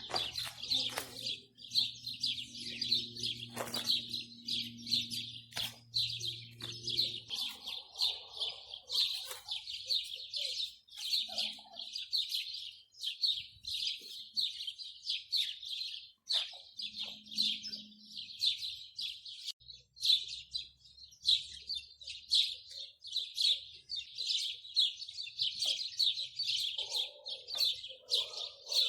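Many small birds chirping in a dense, continuous chorus of quick high notes. A low steady hum sits underneath for roughly the first seven seconds.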